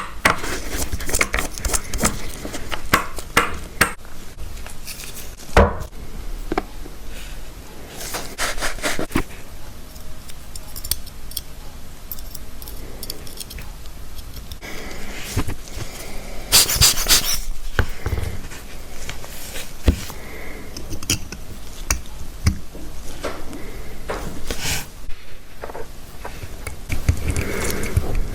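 Small metal watch parts and hand tools being handled on a workbench: irregular light clicks, taps and clinks, with a sharper knock about five seconds in and a dense metallic rattle a little past halfway.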